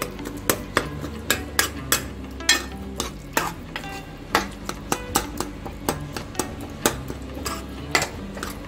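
Metal ladle stirring and scraping thick pav bhaji masala in a metal kadhai, with sharp, irregular clinks of ladle on pan, a few a second.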